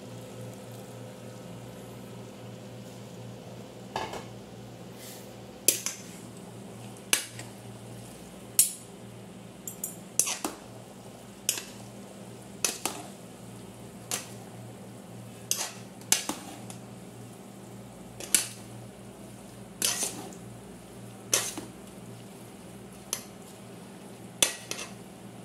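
Metal ladle and fork clanking against the side of a large metal cooking pot while noodles are tossed and stirred. The sharp clanks start a few seconds in and come about every second and a half, over a steady low hum.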